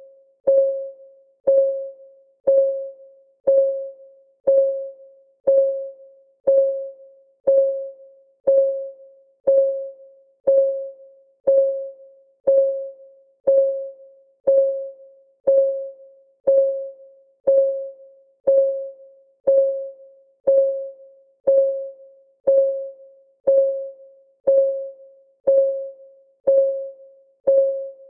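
Clock-ticking sound of a countdown timer: a short, pitched tick once a second, each one dying away within about half a second.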